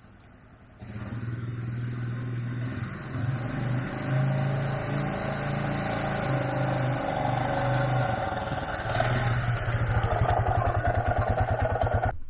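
Four-wheeler (ATV) engine running under way, its pitch rising and falling a little as the throttle changes; it comes in suddenly about a second in and settles into an even, rapid pulsing near the end.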